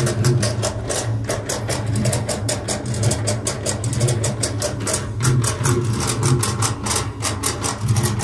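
Fast, even drumming, about six strokes a second, over a steady low drone.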